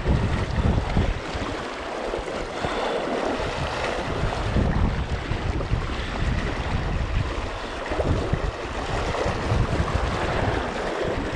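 Madison River water rushing over a riffle in a steady wash, with wind buffeting the microphone in irregular low gusts.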